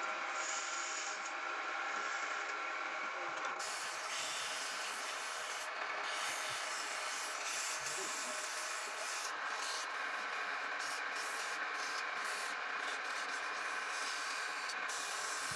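Wood lathe running with steady motor tones while a piece of spinning palm wood is worked against, a continuous rubbing, sanding-like scrape that turns hissier about three and a half seconds in.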